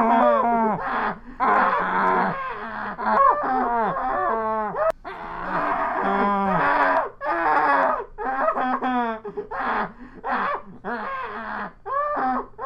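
Muffled human screaming: a long run of drawn-out 'ahhh' cries, one after another with short breaks, the pitch sliding up and down within each cry.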